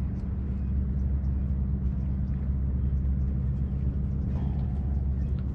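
A steady low engine hum with a deep, unchanging drone.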